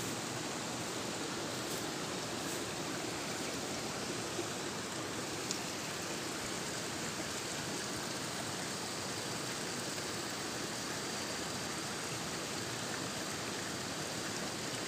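Steady rush of water flowing in a rice-field irrigation channel, spilling through concrete sluices. A faint thin high tone joins about halfway through.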